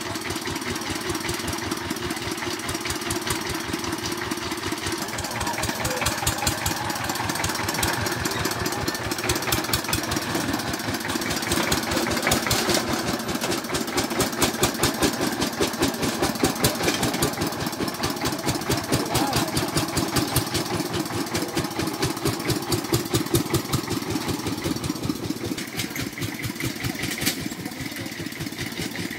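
Single-cylinder diesel engine of a two-wheel walking tractor (hand tractor with iron cage wheels) running steadily with a fast, even knock of its firing strokes. It gets louder in the middle stretch and eases off a little near the end.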